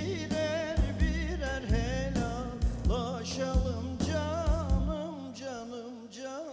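Turkish folk song: a wavering, heavily ornamented melody over a steady drum beat and bass. The beat and bass drop out about five seconds in, leaving the melody.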